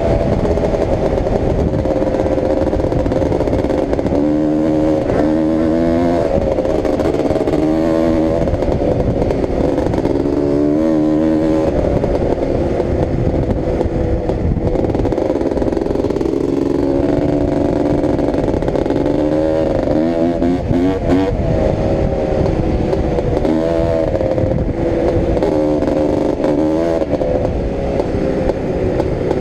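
1989 Honda TRX250R's two-stroke single-cylinder engine running under way, its pitch climbing and dropping again and again as the throttle is opened and closed and the gears are worked.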